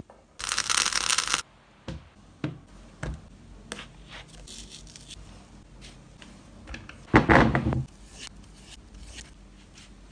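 Steel kebab skewers and a wire grill basket being handled: scattered metallic clicks and taps. A short noisy burst comes about half a second in, and a louder clatter about seven seconds in.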